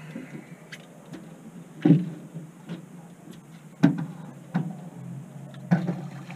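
About four sharp knocks and clunks on the hull and deck of an aluminum boat while a landing net is handled to land a fish, over a steady low hum. The first knock is the loudest.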